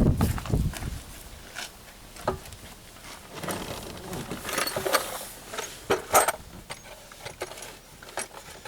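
Irregular clicks, clinks and light rattles of hand tools and small parts being handled during work on a car's dashboard, with a few low knocks in the first second.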